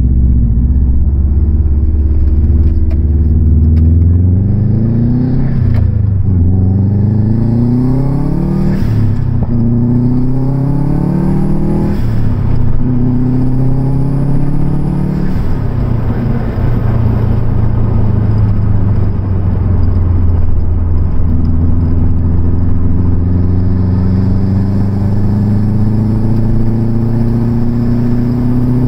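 Car engine heard from inside the cabin, running steadily for the first few seconds, then pulling away and revving up through several gear changes. After that it settles to a steady cruise, with the revs rising slowly near the end.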